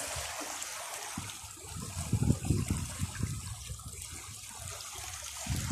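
Water running and trickling, with a few low rumbles around two seconds in.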